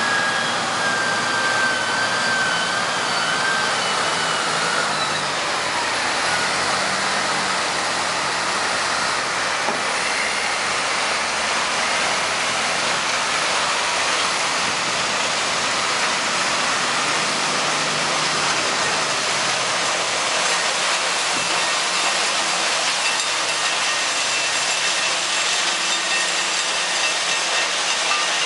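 Steady sawmill machinery noise, a loud, even hiss, with a wheel loader's engine whine that sinks slightly and fades about four seconds in.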